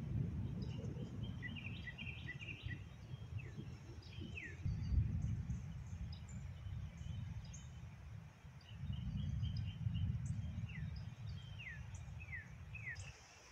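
Low rumble of distant thunder, swelling about four seconds in and again about nine seconds in, under birds chirping with short, quickly falling calls.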